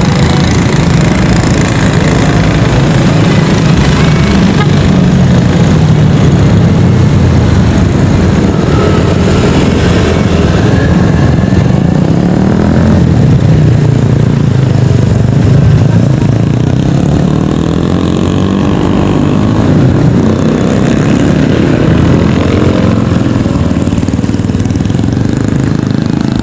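Engines running steadily and loudly, a low hum whose pitch drifts up and down without stopping.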